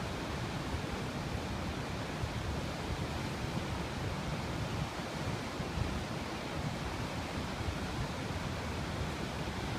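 Niagara River's rapids above the falls rushing, a steady deep noise of fast water without a break.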